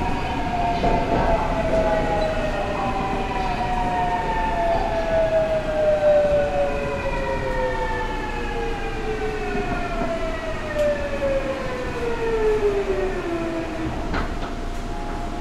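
Seoul Metro Line 8 electric train braking into a station, its traction motors whining in several tones that fall steadily in pitch as it slows. The whine dies out about 14 seconds in as the train comes to a stop, followed by a click.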